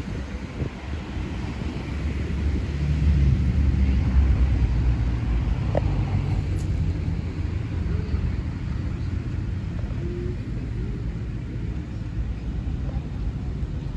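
Low rumble of a passing motor vehicle, swelling about three seconds in and slowly fading.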